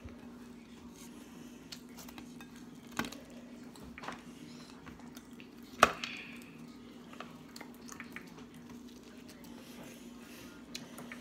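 Sounds of eating at a table: chewing and handling pizza slices, with a few short sharp clicks and knocks against plates, the loudest about six seconds in. A steady low hum sits underneath.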